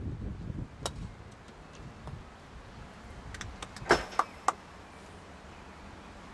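A few sharp knocks, the loudest about four seconds in: hard croquet balls and a wooden mallet clacking on a grass lawn. Wind rumbles on the microphone in the first second.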